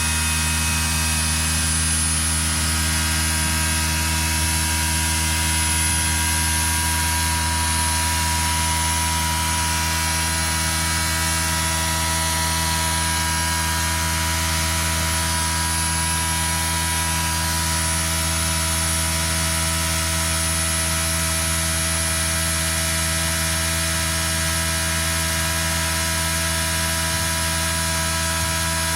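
Exhaust fan running at high speed: a steady hum and whine over an even rush of air, unchanging throughout.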